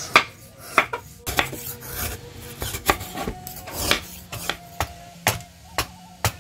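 A long kitchen knife slicing and shaving a block of palm sugar on a wooden board: sharp knocks of the blade against the board, about two a second, with a scraping rasp between them.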